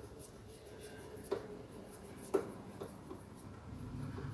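Light scraping and rubbing with two sharp clicks, about a second and two seconds in, as a self-tapping screw holding a plastic interior trim panel is worked loose with a screwdriver.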